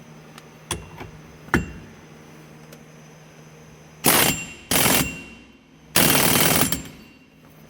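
Compact air impact wrench running in three bursts about four to seven seconds in, the last one the longest, driving the steering column nut onto the new hub adapter. Two sharp metal clicks come about a second in.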